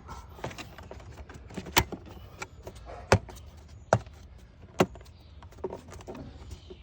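A series of sharp plastic clicks and knocks, roughly a second apart, as a plastic engine cover is pressed down onto its mounting tabs.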